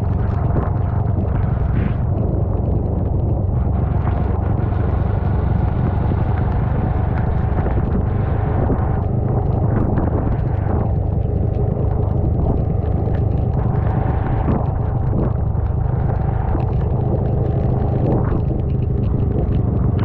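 Motorcycle riding on a wet road: steady wind rumble on the camera microphone, with the engine running underneath.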